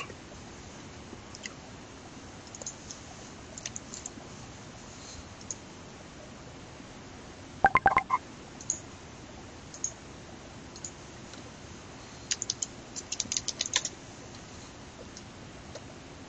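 Scattered clicks of computer keyboard keys, with a quick run of typing about twelve seconds in. A brief cluster of louder knocks comes about halfway through.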